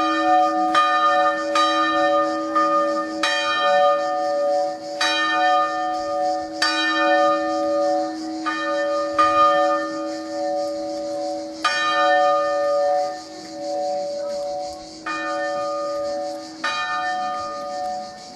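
Swinging church bells of a three-bell electrified tower ringing, with clangs over a sustained hum. The strokes come in quick succession at first, then further apart, with several seconds between some of them in the second half.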